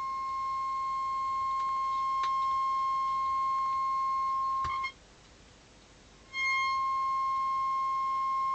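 A sine-wave test tone from a signal generator, played through a homebrew class B transistor audio amplifier, as its quiescent-current potentiometer is turned. It is a steady high-pitched tone with overtones. A little past the middle it cuts out for about a second and a half, then comes back.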